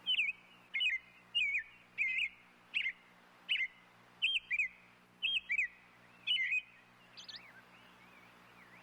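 A bird calling: a quick series of short whistled chirps, about one phrase every 0.7 seconds, some doubled, fading to fainter calls near the end.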